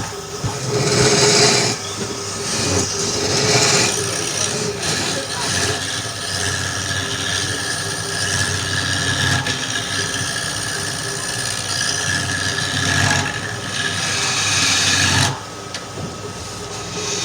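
Woodturning lathe running steadily, with a tool cutting into the spinning wood in loud hissing stretches. The cutting eases off about fifteen seconds in.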